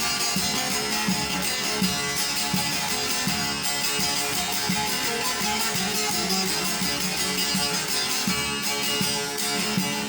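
Instrumental break in a Turkish folk song (türkü): plucked string instruments play the melody at a steady level, with no singing.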